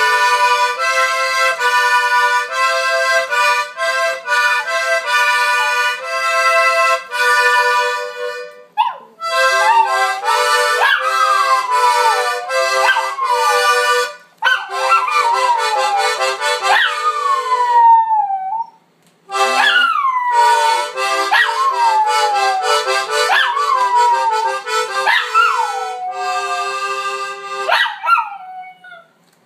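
A small button accordion plays chords in short phrases with brief pauses. From about nine seconds in, a small dog howls along over it in a series of howls, each rising briefly and then sliding down in pitch.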